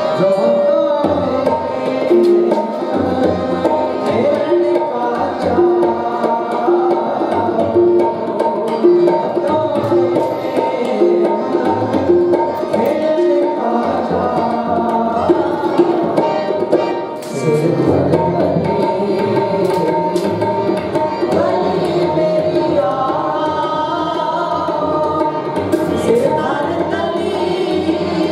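Sikh kirtan music: harmoniums play a melody over a steady tabla rhythm.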